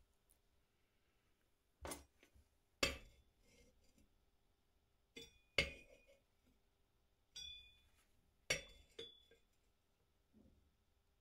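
Metal pieces being handled, clinking and knocking together in irregular sharp strikes, about seven in all, several of them ringing briefly.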